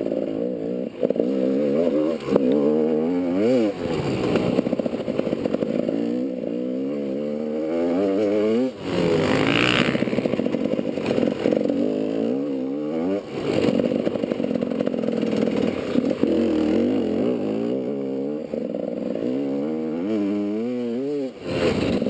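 A GasGas enduro motorcycle engine being ridden hard. Its pitch climbs and drops over and over as the throttle is worked, with a brief rushing noise about halfway through.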